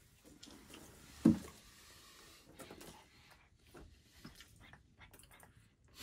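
A cat moving about on a wooden plank floor, with faint scuffs and small ticks, and one short low thump about a second in.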